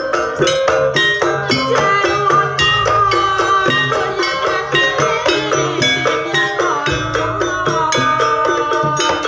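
Traditional Javanese jaranan dance music: rapid struck, ringing percussion notes and drums under a held, wavering melody line that enters about two seconds in.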